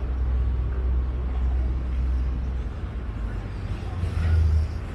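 Steady low rumble of a vaporetto's engine underway, with water and wind noise over it. The rumble swells briefly about four seconds in, then eases.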